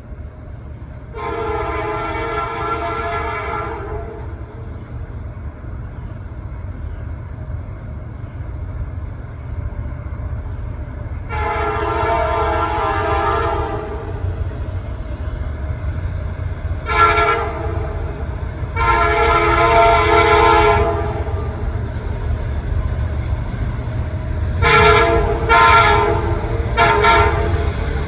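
EMD SD70MAC locomotive's K5LA air horn, with one fouled chime, sounding the grade-crossing signal (long, long, short, long) over the rising rumble of its diesel engine as the freight train approaches. Near the end comes a quick run of short toots on the horn.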